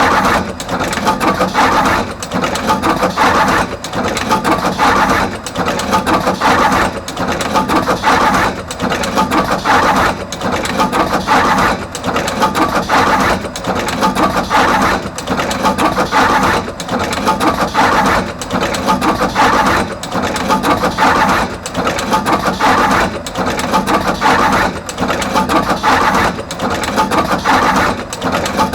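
Artos CR22 automatic wire crimping machine running continuously, crimping terminals onto both ends of each wire: a dense mechanical clatter that pauses briefly about every second and a half as each cycle repeats.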